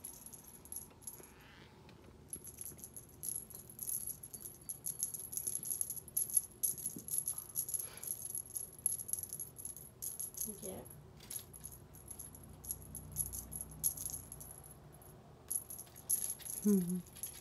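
Cat wand toy jiggled over a kitten, rattling as a rapid, uneven run of small high clicks with short pauses.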